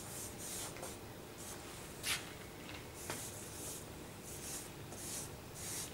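Charcoal stick scraping across drawing paper on an easel in quick sketching strokes: a string of short hissing scratches, about one or two a second, the sharpest about two seconds in.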